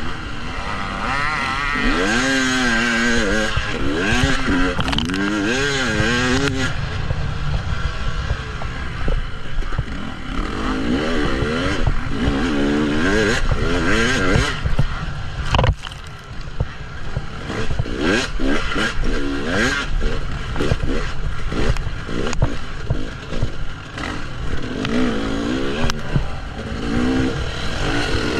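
KTM 300 EXC single-cylinder two-stroke enduro engine being ridden off-road, its revs rising and falling again and again as the throttle is worked, over a constant low rumble. Sharp clatters sound now and then near the middle.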